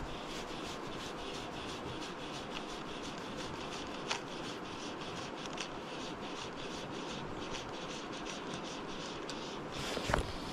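A small river flowing steadily, with light scratching and rubbing ticks close to the microphone as the fly rod and line are handled, and a knock about ten seconds in as the rod is moved.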